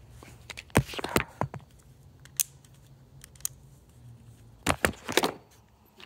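Sharp metallic clicks and rattles of a key and a Mercedes W140 ignition lock mechanism being worked through its detent positions, as single clicks with a quick cluster near the end.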